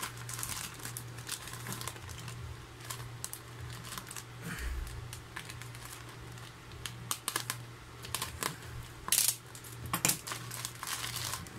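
Plastic courier mailer crinkling and rustling as it is handled and slit open with a snap-off utility knife, with scattered sharp clicks and taps, the loudest about nine seconds in. A faint steady low hum runs underneath.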